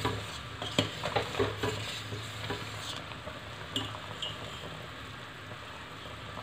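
A steel spoon stirring penne in a stainless-steel pot of boiling water, clinking against the pot several times in the first four seconds over the steady bubbling of the water, as the pasta is checked for doneness.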